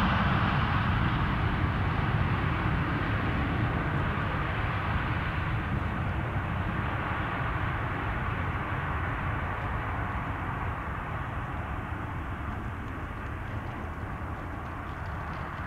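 Boeing 777-300ER's GE90 jet engines running during the landing rollout, a steady rumble that fades as the airliner moves away down the runway.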